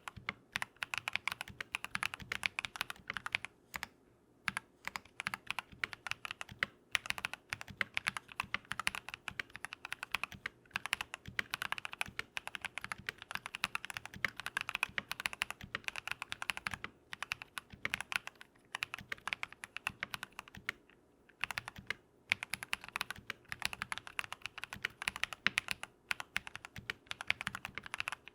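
Continuous typing on a modded Keychron V1 mechanical keyboard fitted with lubed Drop + Invyr Holy Panda tactile switches: rapid runs of keystrokes with a few short pauses.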